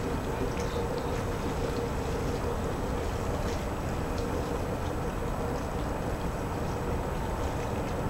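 Bell ringing in the distance, its lingering tones fading over the first few seconds, above a steady low rumble of wind and harbour-side noise.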